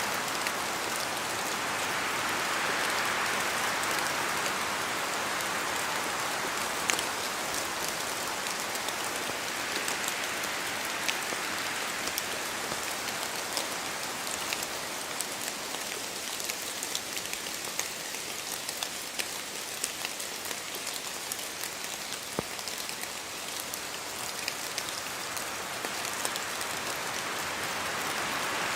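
Steady rain in a spruce forest, with many separate drops ticking as they fall from the branches. A broader rush of wind through the trees swells near the start and again near the end.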